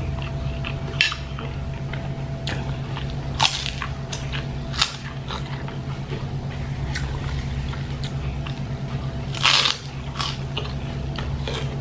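Close-mouthed eating sounds: chewing and crunching of kerupuk crackers and noodles, with scattered small clicks and one louder crunch near the end, over a steady low hum.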